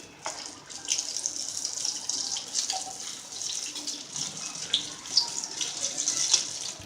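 Prawn pakodas in gram-flour batter deep-frying in hot oil: a steady sizzle with crackling pops, and a few sharp clicks.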